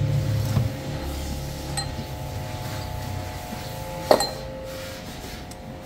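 Light metallic clinks and knocks from a car audio amplifier being handled among loose wiring, with one sharp clink about four seconds in, over a steady low hum.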